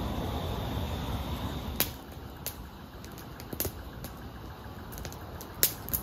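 Wood campfire crackling, with scattered sharp pops about once a second, the loudest near the end. A steady hiss fills the first two seconds.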